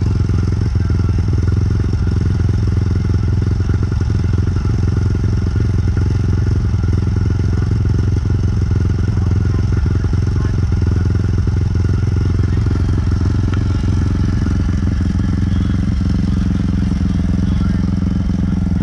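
Two-stroke engine of a Kawasaki KDX220 dirt bike running at low, steady revs, with no blips of the throttle.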